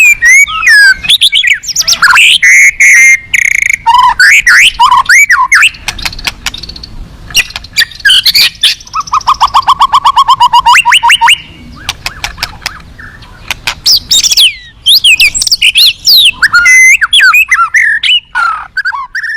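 White-rumped shama (murai batu) singing loudly, a varied song of whistles, chatters and imitated calls of other birds, with a fast run of repeated notes, about nine a second, about halfway through.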